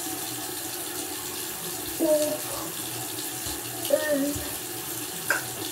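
Bathroom faucet running steadily into the sink, left on so the hot water comes through. A few brief words are spoken over it.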